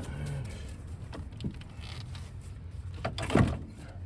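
Hands and tools working loose a car's front suspension and CV axle: a few light clicks, then a louder clunk with a scrape a little over three seconds in, over a steady low hum.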